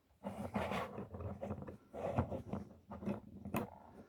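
Hard plastic action-figure parts clicking and scraping as an accessory is pushed and worked onto a peg on the figure's forearm. The sounds come in small, irregular clicks and rubs, the fit not yet seating.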